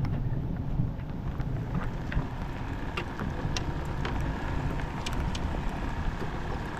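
Wind buffeting the microphone with a steady low rumble, and scattered light ticks of raindrops landing close by.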